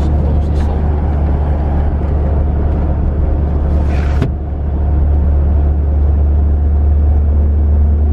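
Inside the cabin of a Toyota Land Cruiser HDJ81V on the move: the 1HD-T 4.2-litre straight-six turbo-diesel and the tyres on the road make a steady low drone. About four seconds in comes a short hiss ending in a sharp click, and the level dips for a moment before the drone comes back.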